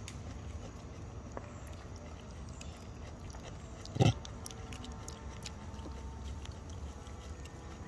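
A single short grunt from a macaque about four seconds in, over a steady low rumble.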